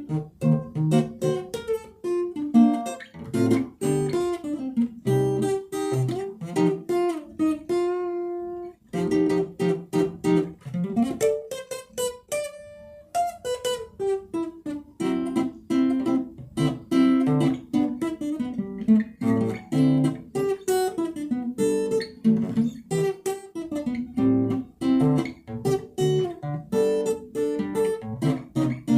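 Acoustic guitar played solo, with plucked notes and strummed chords in a moving melodic line. A held note rings out and fades about eight seconds in, and there is a short pause a few seconds later.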